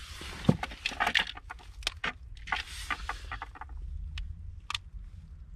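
Cooked lobster shell cracked and picked apart by hand: a quick run of sharp cracks and clicks, most of them in the first three and a half seconds, over a low wind rumble on the microphone.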